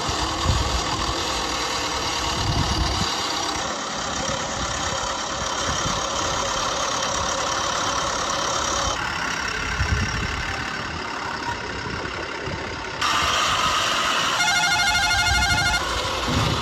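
Vehicle engines running, in segments that change abruptly from one to the next. Near the end a warbling electronic tone repeats for about a second and a half.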